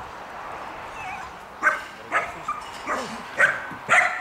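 Belgian Malinois barking, a run of about five short, sharp barks roughly half a second apart, starting about one and a half seconds in.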